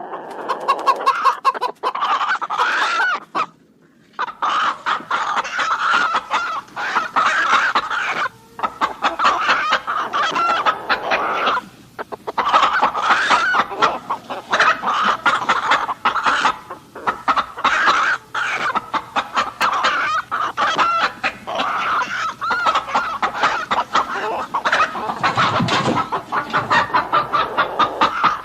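A flock of chickens clucking and cackling almost without pause, with a short lull about four seconds in.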